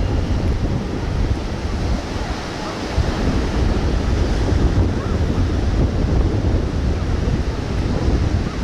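Strong wind buffeting the camcorder's microphone: a continuous, fluctuating low rumble over a steady rushing noise.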